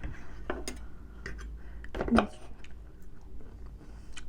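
Close-miked eating sounds: scattered light clicks of cutlery and mouth noises of chewing steak, with a short hummed vocal sound about two seconds in.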